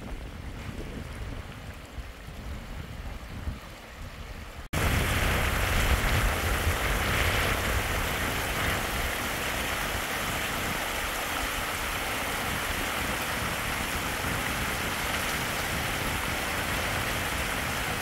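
Heavy rain falling steadily, an even hiss that comes in abruptly about five seconds in; before it there is only a quieter low rumble.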